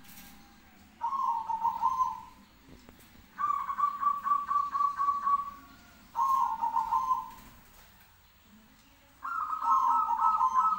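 Zebra doves (perkutut) calling back and forth: four stuttering, trilling coos, each a second or two long and a few seconds apart. In the last call two voices sound at once.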